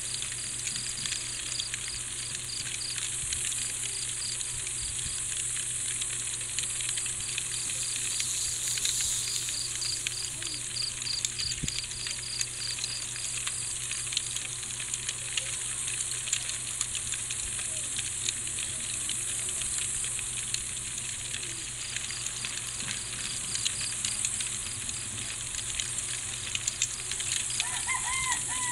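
A night insect chorus: a steady high hiss with crickets chirping in rhythmic pulsed runs a few seconds long, over a low steady hum. A rooster starts to crow right at the end.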